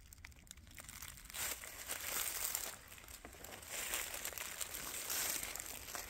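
Footsteps crunching through dry leaf litter on the forest floor, in uneven steps about once a second. Faint at first, louder from about a second and a half in.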